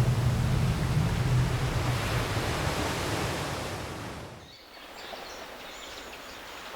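Ocean surf washing, with a low hum under it at first, fading out about four seconds in and leaving a faint hiss.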